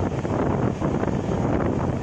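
Steady rumble and rush of an LHB passenger coach running at speed, with wind noise on the microphone.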